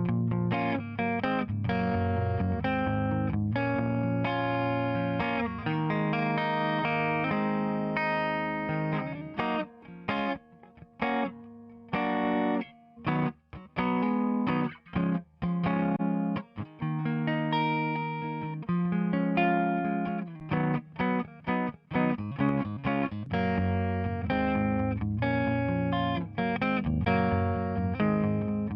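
Electric guitar part, lightly driven, played back through a tape-emulation plugin: sustained chords, with a stretch of short, choppy notes and brief gaps in the middle.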